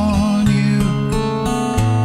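Acoustic guitar strummed in a slow ballad, with the chord changing about half a second in and again near the end, and a man singing a held note over it.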